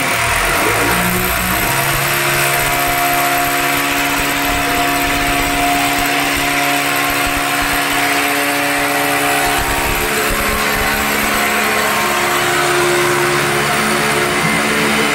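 Electric hammer drill running steadily as it bores into a plastered masonry wall, a constant motor whine over the grinding of the bit.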